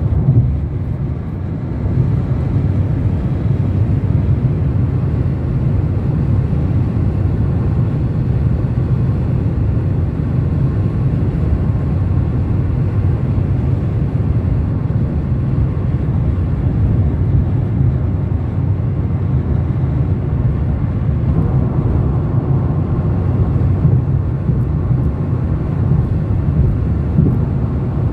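Steady low rumble of road and wind noise from a car travelling at speed along a highway.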